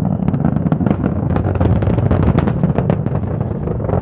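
SpaceX Falcon 9 rocket launching, heard from the viewing site as a deep, continuous rumble full of crackles.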